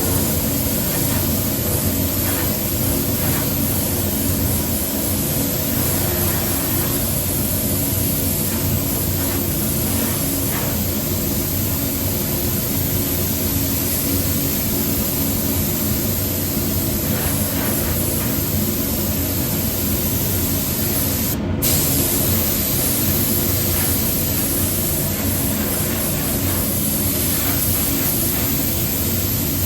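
Paint spray gun hissing steadily as it sprays 2K acrylic paint, with a steady low hum underneath. The hiss breaks off for a split second once, about two-thirds of the way through.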